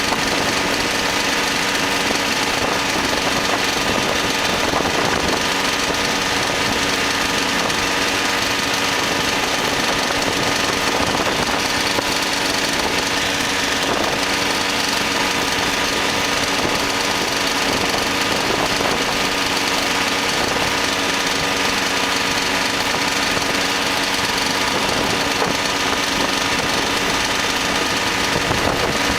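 Ultralight aircraft engine and propeller running steadily, an even drone that holds the same power setting throughout.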